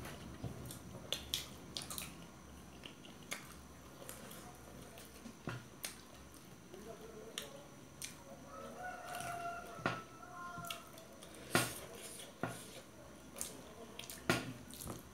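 Forks clicking and scraping on steel plates as two people eat, in scattered sharp ticks. About halfway through, a rooster crows in the distance, one long drawn-out call.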